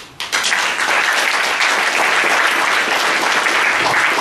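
Audience applauding, starting just after the beginning and holding steady throughout.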